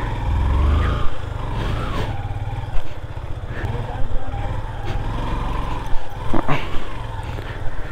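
Motorcycle engine running as the bike is ridden slowly, a steady low rumble that is loudest in the first second.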